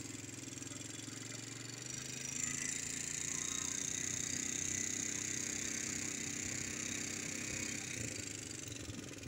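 Quad bike (ATV) engine running steadily while being ridden over sand, with wind hiss on the microphone; the engine gets a little louder about two and a half seconds in.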